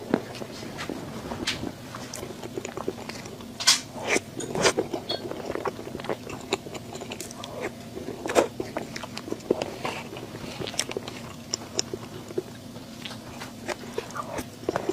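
A person biting and chewing food close to the microphone, with irregular wet clicks and small crunches over a faint steady hum.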